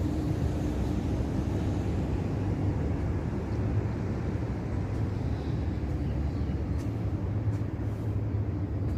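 Commercial HVAC package unit running with a steady low hum and rush of machinery noise, no change in speed.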